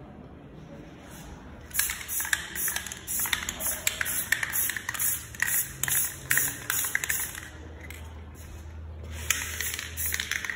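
Aerosol can of clear coat hissing in a series of short sprays, about two a second, starting about two seconds in; it pauses briefly near the eight-second mark, then sprays again.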